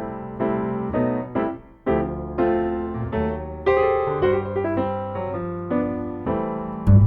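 Piano-style keyboard music: a slow tune of struck notes and chords, about two a second, each one fading away.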